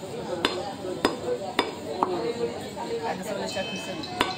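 Butcher's cleaver chopping beef on a wooden stump block: a run of four sharp chops about every half second, then one more near the end.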